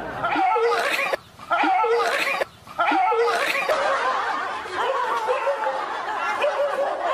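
People laughing hard, a steady stretch of giggling and snickering, broken by two short drops about one and two and a half seconds in.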